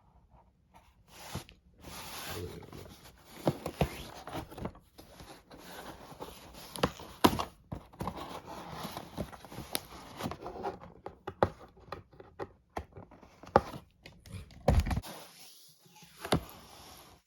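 A package being opened by hand: rustling and scraping of packaging with many sharp clicks and knocks, and a heavier thud near the end.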